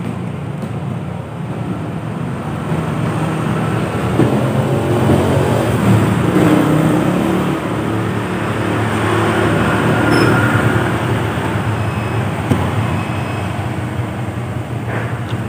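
Road traffic passing, a steady engine rumble and tyre noise that grows louder for several seconds in the middle as vehicles go by.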